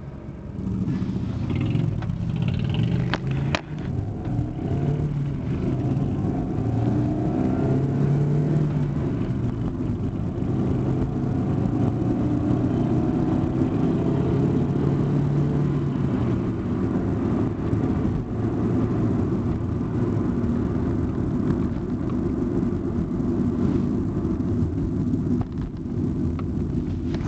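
Vehicle engines running at road speed, the engine note drifting slowly up and down with the revs, with a brief click a few seconds in.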